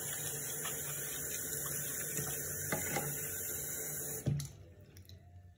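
Bathroom sink tap running, its stream splashing into the basin, with a few faint knocks; about four seconds in the tap is shut off with a short knock and the water stops.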